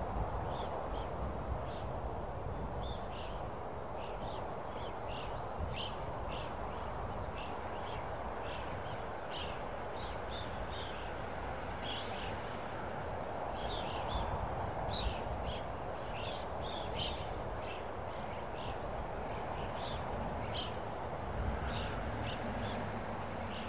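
Open-country outdoor ambience: a steady hiss and low rumble like wind, with many short, scattered bird chirps throughout. A faint low hum comes in near the end.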